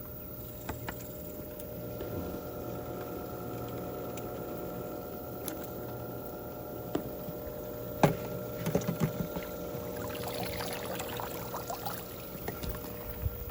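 Pool water sloshing and swishing as a pool net is swept through it, with a splash about nine seconds in, over a steady hum.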